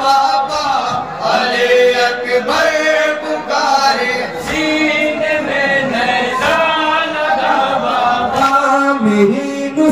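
A group of men chanting a noha, a Shia mourning lament, voices singing together over a lead reciter on a microphone.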